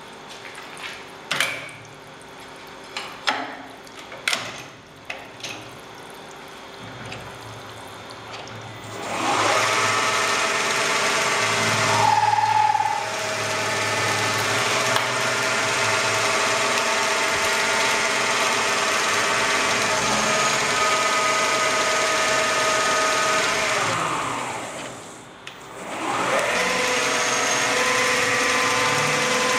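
CNC lathe running: a few sharp clicks and knocks, then the 2 HP spindle motor spins up with a rising whine about nine seconds in and runs steadily with a stack of even tones, with higher tones coming and going on top. Near the end it winds down, dips briefly and spins up again.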